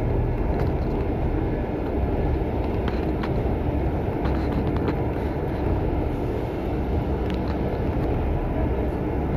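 Bus on the move, heard from inside: a steady low rumble of engine and road noise, with scattered light rattles and clicks.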